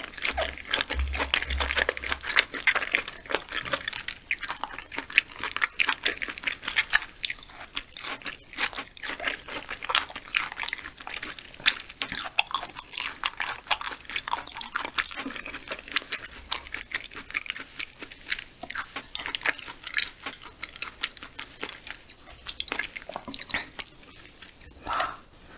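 Close-miked wet chewing of raw yellowtail (daebangeo) sashimi: a steady run of quick, soft, moist mouth clicks and smacks.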